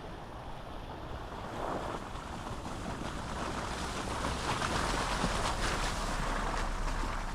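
Steady rushing, splashing noise of a Jeep's tyres running through trail slush, with wind on the microphone. It grows a little louder about two seconds in.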